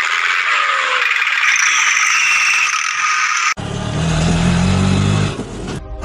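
Plastic toy dump truck rattling, whirring and scraping as it drags through wet sand and mud, a dense hissing clatter. About three and a half seconds in this cuts off abruptly and a low, wavering engine-like drone takes over.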